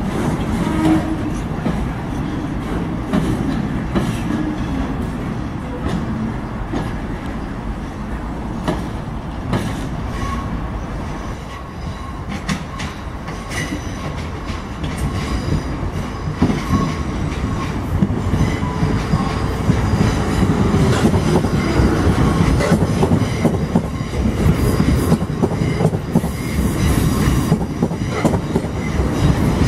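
A freight train's wagons rumble and clatter over the rail joints as they pass, fading about twelve seconds in. Then a pair of Class 450 Desiro electric multiple units approaches and runs into the platform, growing louder, with a falling whine as the train slows.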